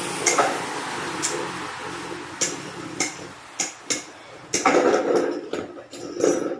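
Irregular sharp clicks and light knocks of hard plastic being handled, as when Beyblade top parts are fitted together or set down, over a faint hiss.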